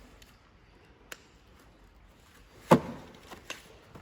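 Tools being handled in a toolbox drawer: a faint click about a second in, then a sharp knock a little past halfway and a lighter one just after.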